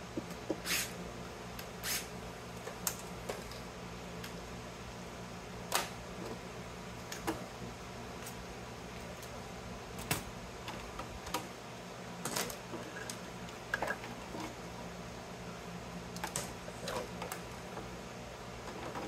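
Irregular clicks and light clatter of plastic and metal electrical parts, such as contactors, wiring and screws, being handled and set down while a variable frequency drive is taken apart, over a steady low hum.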